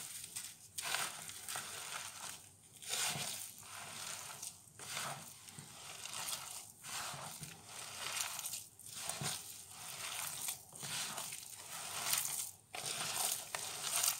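A hand kneading and squeezing raw minced mutton mixed with egg, onion paste, chopped tomato and spices in a clear plastic bowl, a chapli kebab mixture being worked together. It goes in repeated strokes, with a short break about every two seconds.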